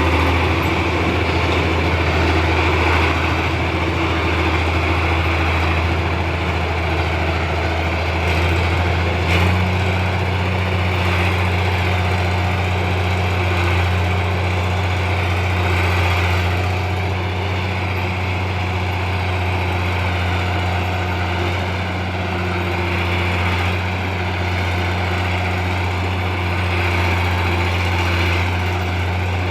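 Komatsu D60-8 bulldozer's diesel engine running steadily, with a deep, even hum. A short knock about nine seconds in, after which the engine note changes slightly.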